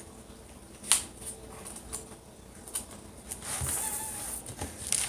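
Paper notebook pages being flipped and rustled, with a sharp tap about a second in and a longer stretch of rustling past the middle.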